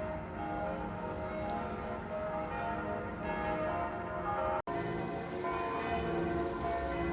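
Several church bells ringing together, their overlapping tones at different pitches sounding continuously. A split-second dropout breaks the ringing about two-thirds of the way through.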